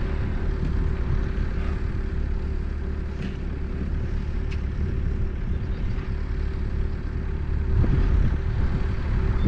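A vehicle engine running steadily: a low rumble with a constant hum and no change in speed.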